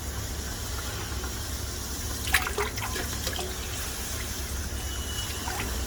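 Used motor oil running and dripping out as the old oil filter comes off, over a steady low hum. A sharp metallic clink sounds about two seconds in, followed by a few lighter clicks.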